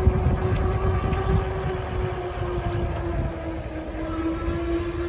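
E-bike riding at speed on pavement: wind buffets the microphone with a steady low rumble, over a steady whine from the electric assist motor that dips slightly in pitch about three seconds in.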